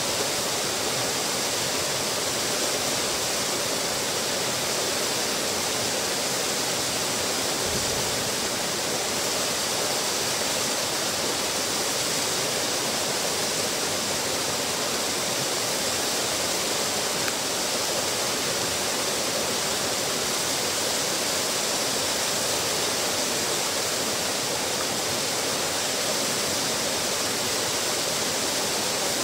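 Small waterfall pouring over a stone ledge into a pool: a steady, even rush and splash of falling water.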